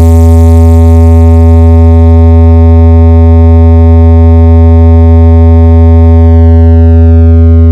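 One long, very loud synthesized bass note held at a steady pitch: the bass-test drop of a DJ competition sound check, played through a big sound system.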